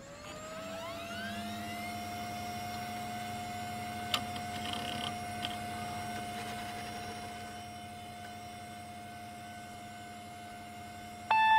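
An old desktop computer powering up: a rising whine in the first two seconds settles into a steady electronic hum, with a sharp click about four seconds in and a few faint scratchy noises just after. Loud music cuts in right at the end.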